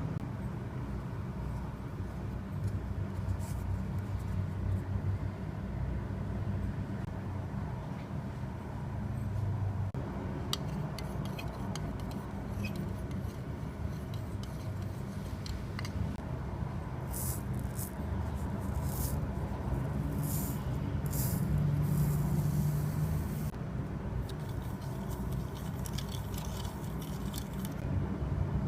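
Steady low rumble with scattered light clicks and scrapes, the clicks coming thickest in the second half.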